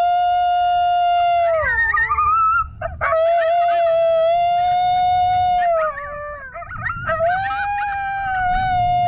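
Coyote group yip howl played through a FoxPro Fusion electronic game caller as a locator call: three long, steady howls, with short yips and warbling calls between them.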